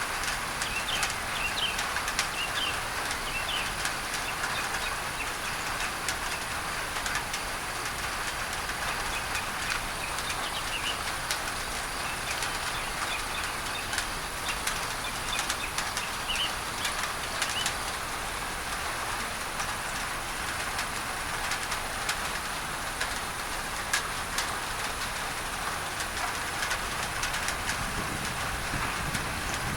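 Steady rain on a tin roof blended with a constant hiss of masking noise, with individual drops ticking sharply. Birds chirp through the first half, and a low rumble builds near the end.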